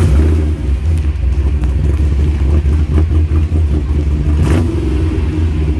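Car engine catching at the start and then idling with a loud, deep, steady rumble just after start-up. There is a short hiss about four and a half seconds in.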